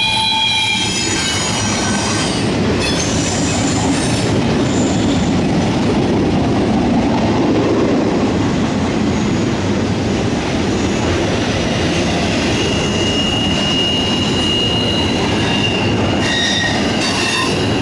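Double-stack intermodal freight train's well cars rolling past: a steady, loud rumble of steel wheels on rail. High-pitched wheel squeal fades out about a second in and a single thinner squeal tone returns in the second half.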